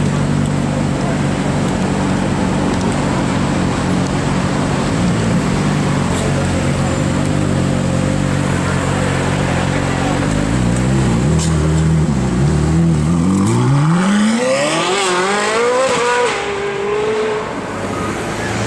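Novitec Rosso-tuned Ferrari 458 Italia V8 idling steadily with a few light blips of the throttle. It then accelerates away hard, its revs climbing steeply for a couple of seconds before dropping with an upshift, and the sound fades as the car pulls off.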